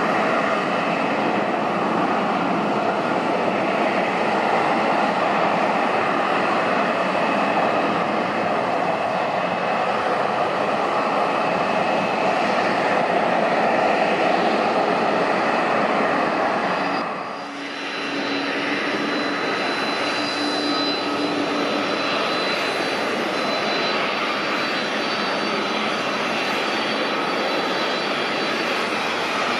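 Jet airliner engines running at taxi power: a steady jet rush with a whine, first from a Boeing 787-9 Dreamliner, then, after a brief dip in level about two-thirds through, from a Boeing 777-300ER with GE90 engines, whose whine carries a thin high steady whistle.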